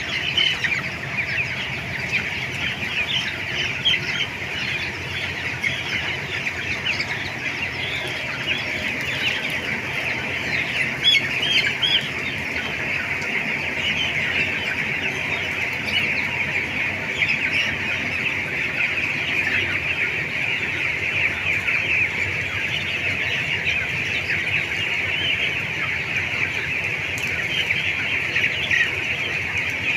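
A large flock of farm chickens calling continuously, a dense, steady chatter of many overlapping cheeps and clucks.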